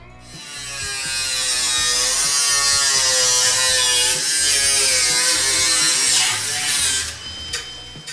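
AEG angle grinder cutting into rusted sheet steel of a car body. It runs up about half a second in and cuts with a loud hiss, its motor pitch wavering under load. About seven seconds in it shuts off and winds down with a fading high whine.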